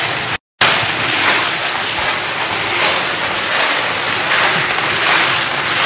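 Kobalt cement mixer used as a wet tumbler, its drum turning a large load of brass cartridge cases in soapy water: a steady, noisy churning rattle of cases tumbling in the drum. The sound drops out for a moment about half a second in.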